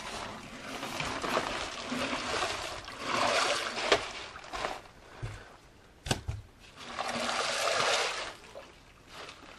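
Water and mud splashing and sloshing in a flooded drainage trench as old corrugated drain pipe is pulled out of it, in two longer stretches, with one sharp knock about six seconds in.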